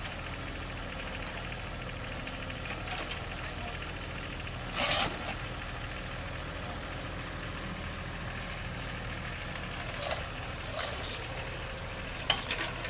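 Backhoe's diesel engine running steadily at a low idle, with a few short sharp noises over it: a loud one about five seconds in and smaller ones near the end.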